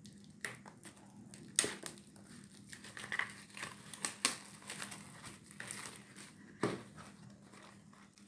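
The lid and packaging of an instant cup-noodles cup being peeled open by hand: crinkling, with a run of sharp crackles, the loudest about a second and a half in, around four seconds in, and near the end.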